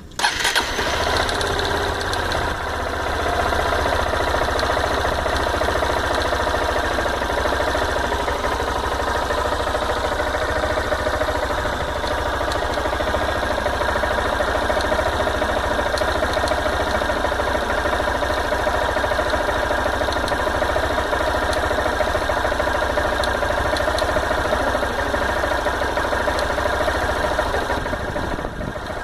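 Honda Bros 160 single-cylinder four-stroke motorcycle engine starting and settling into a steady idle, with faint scattered ticks over the running. The owner records it for a strange noise that he says comes at random a few seconds after starting.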